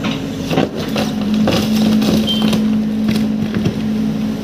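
Hyundai hydraulic excavator's diesel engine running, a steady hum that drops slightly in pitch and grows louder about a second in, as the boom and bucket move. Scattered sharp knocks and cracks come from the bucket working among soil and cut branches.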